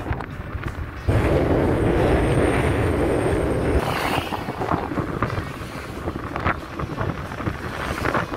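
Wind rushing over the microphone of a camera on a moving motorcycle, mixed with road noise from the ride. A heavier, louder stretch of wind buffeting starts suddenly about a second in and eases just before the halfway point.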